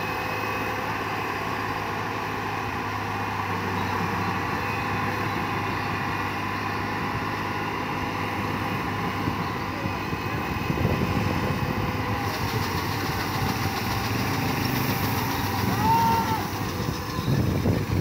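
New Holland combine harvester's diesel engine running steadily close by, with a steady low hum; the machine noise grows louder and rougher about ten seconds in.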